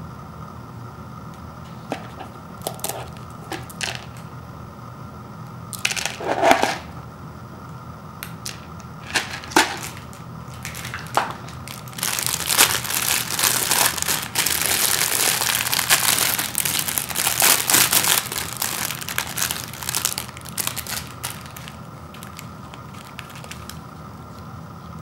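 Thin clear plastic wrapper around instant-noodle seasoning packets crinkling as it is handled and pulled open: a few short crinkles at first, then dense crinkling for about nine seconds from about halfway through.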